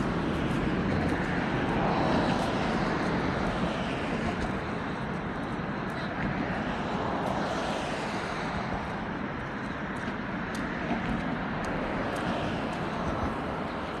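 Steady outdoor city ambience: a rumble of road traffic with vehicles swelling past now and then.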